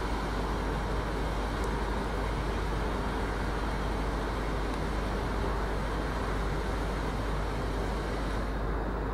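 Steady low rumble under an even background hiss, with no distinct events.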